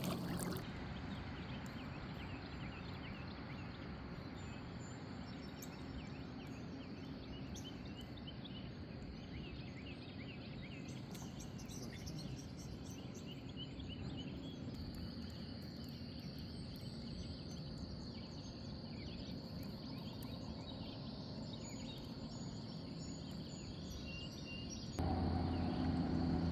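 Steady outdoor noise of river current, with small birds chirping faintly now and then. Near the end a louder low steady hum comes in.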